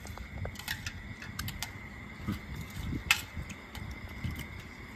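A metal spoon clinks and scrapes against a ceramic plate: a few light, scattered clicks, the sharpest about three seconds in.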